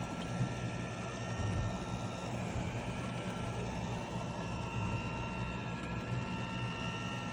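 iRobot Roomba Vac Essential robot vacuum running: a steady motor and brush whir with a thin, constant high whine.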